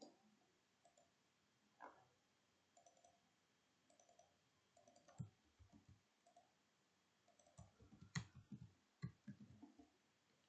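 Faint computer keyboard keystrokes and mouse clicks in short scattered clusters, busiest about five seconds in and around eight to nine seconds in.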